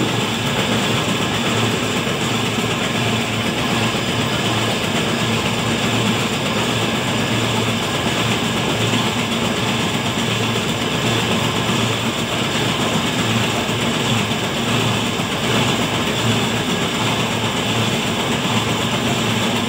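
Steady engine and suction-pump noise of a septic siphoning rig, its suction hose drawing liquid waste out of a septic tank.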